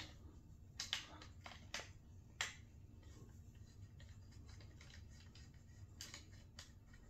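A choke tube being screwed into the muzzle of an Emperor Firearms MTP20 20-gauge pump shotgun by hand. A few sharp metallic clicks come in the first two and a half seconds, then faint light ticks.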